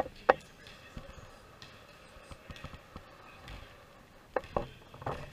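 A basketball bouncing on a hardwood gym floor, sharp knocks with a hall echo: two close together at the start, the second the loudest, then three more near the end.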